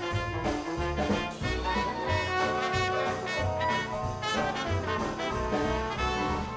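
Upbeat jazzy background music led by brass over a steady, regular bass line.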